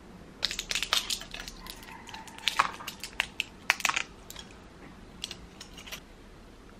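Plastic-and-foil blister pack of tablets being handled and pressed, crackling in a dense run of sharp clicks for about three and a half seconds, then a few more scattered crackles.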